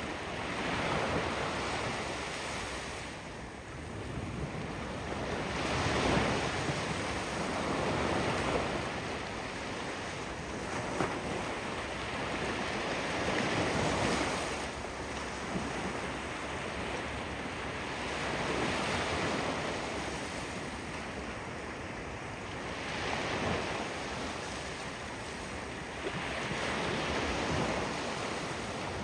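Sea waves breaking and washing onto the shore, rising and falling in surges every few seconds.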